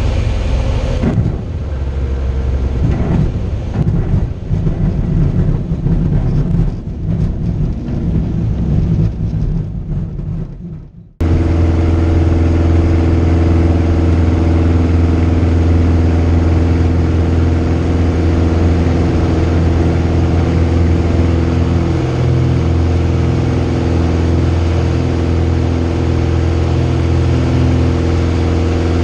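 Vans RV light aircraft's piston engine and propeller, heard from inside the cockpit during a takeoff roll on a grass strip. For the first ten seconds or so the sound is uneven and rumbling. About eleven seconds in it cuts off abruptly and gives way to a steady, even engine drone at takeoff power.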